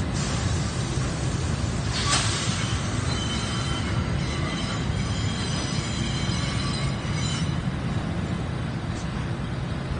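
R68-series New York subway train rolling slowly into the station with a steady low rumble. Thin high wheel squeal rings from about three seconds in and fades near the end, with a brief hiss about two seconds in.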